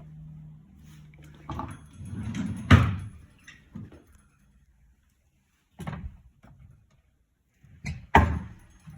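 Several separate knocks and bangs, the loudest about three seconds in and another loud one near the end, with near silence between them.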